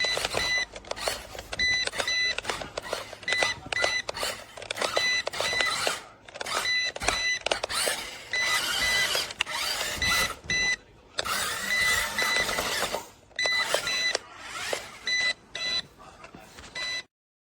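Battery-electric 1:16 4WD RC monster truck driving in repeated short bursts, starting and stopping. Its motor gives a steady high whine under the tyre noise. The sound cuts off suddenly near the end.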